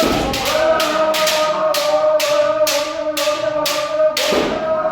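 Kendo practitioners' long drawn-out kiai shout held for several seconds, over rapid sharp clacks of bamboo shinai, about three to four a second.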